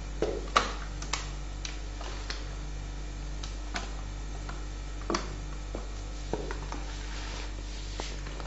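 Marinade-coated potato slices being laid by hand onto a round metal baking tray: scattered soft taps and clicks on the metal, the loudest about half a second in, over a steady low hum.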